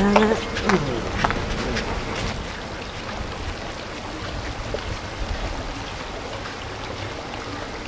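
Steady trickling, rushing water from a terraced stone fountain with water bowls on its steps. A short voice sound and a few sharp clicks come in the first second or so.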